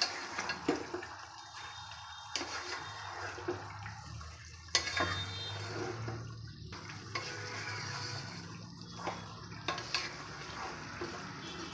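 Wooden spatula stirring and turning pieces of beef in thick curry sauce in a nonstick pot, a wet scraping and stirring sound. A few sharper knocks of the spatula against the pot come at irregular moments. The beef is being braised (kosha) in the masala.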